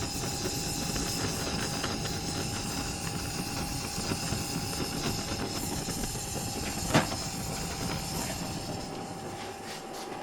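Handheld blowtorch burning with a steady hiss while heating wire connections. A single sharp click about seven seconds in.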